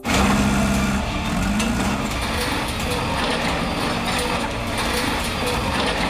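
Heavy earth-moving machinery, excavators and bulldozers, running in a dense, steady mechanical rumble that starts abruptly.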